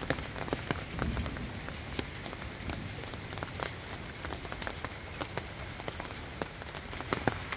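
Rain falling, an even hiss with many irregular sharp drop ticks as drops strike the tent fabric and clear plastic windows close by.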